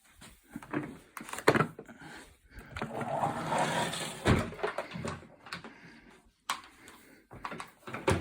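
Knocks, bumps and a scraping rustle of a Henry vacuum cleaner being handled and dragged about, not yet switched on, with a sharp knock about a second and a half in and a heavier thump after four seconds.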